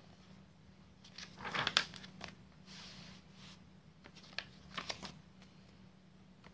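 Comic book's paper pages being turned by hand: papery rustling swishes, the loudest about a second and a half in, then a softer rustle and a few short flicks near the end.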